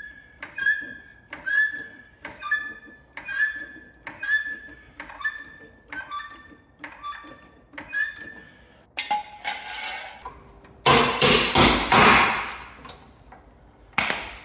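Trolley jack being pumped, with about ten even strokes a little under a second apart, each ending in a ringing metallic clink as the front of the car rises. A louder, harsher noise follows for a few seconds near the end.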